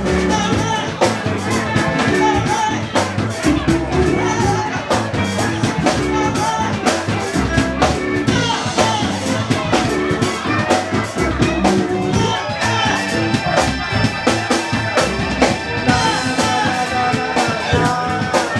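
Live soul band playing, with a drum kit keeping a steady beat under singing and guitar; long held chords come in about two-thirds of the way through.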